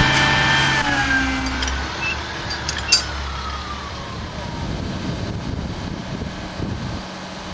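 A crane's engine runs and winds down, its pitch falling and fading over the first two seconds, with a thin whine sliding down after it. A single sharp click comes about three seconds in, and then there is only a steady rush of wind on the microphone.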